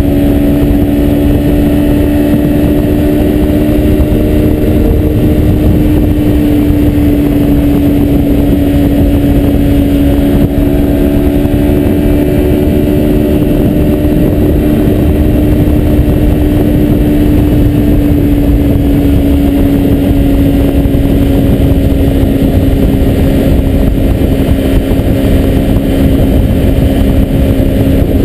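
2003 Kawasaki Ninja 250's parallel-twin engine running at a steady freeway cruise, its note holding a near-constant pitch that sags and rises a little, under a heavy low rush of wind noise.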